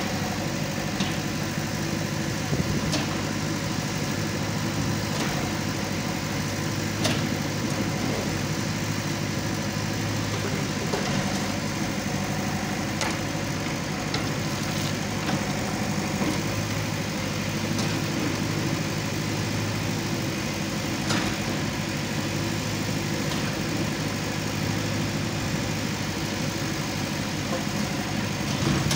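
Backhoe loader's diesel engine running steadily while the backhoe arm digs and lifts soil, with a few brief sharp clicks.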